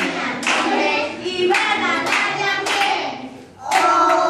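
Group of preschool children singing a song together while clapping along, with a woman clapping too. The singing and clapping drop off briefly about three and a half seconds in, then resume loudly.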